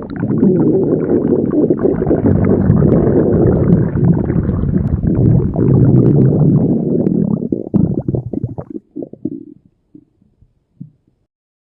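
Stomach growling sound effect: one long, loud rumble lasting about eight seconds, breaking into a few short gurgles over the last few seconds before stopping.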